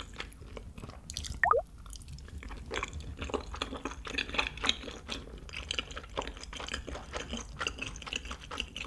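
Close-miked, mouth-closed chewing of soft, chewy tteokbokki rice cakes and spaghetti in meat sauce with melted cheese: a run of small, irregular wet smacks and squishes. A brief falling squeak-like tone sounds about one and a half seconds in.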